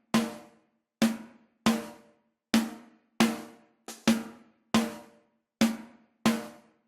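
Live-recorded snare drum played on its own: single hits in a steady pattern, about one every two-thirds of a second, each a sharp crack with a brief ringing low tone that dies away quickly.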